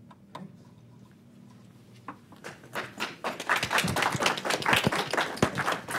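Applause from a small group: a few scattered claps about two seconds in, then dense clapping from about three seconds on, after a quiet stretch of room tone.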